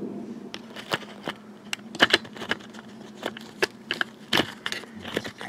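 Handling noise from a handheld camera: irregular clicks, taps and knocks as fingers move on and near the microphone, over a faint low hum at the start.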